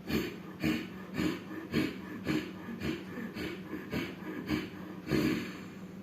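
A person doing rapid, forceful Ujjayi breaths through the throat, about two a second and roughly ten in a row, the last one a little longer.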